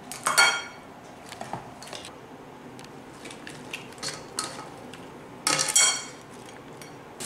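Wooden spoon and whole crab pieces in their shells clattering against a cooking pot and a ceramic serving bowl as crab curry is dished up. Two louder clinks with a short ring, about half a second in and again near the end, with lighter knocks in between.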